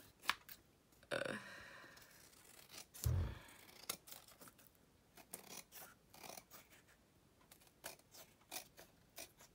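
Scissors cutting paper in a series of short, irregular snips, trimming it flush along the edge of a chipboard card base. There is a soft low bump about three seconds in.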